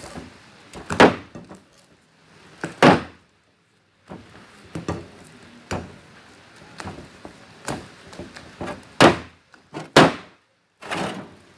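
Sticky homemade slime being kneaded and pulled off the hand, with several sharp wet slaps and pops, the loudest about a second in, near three seconds, and twice near the end.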